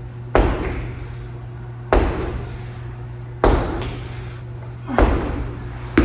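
Heavy thuds from a gym workout, four of them about a second and a half apart with another near the end, each echoing in a large room over a steady low hum.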